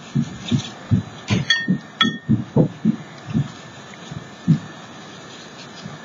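Soft, irregular taps and thumps of hands and a crayon working on paper at a craft table, with two short glassy clinks about a second and a half and two seconds in.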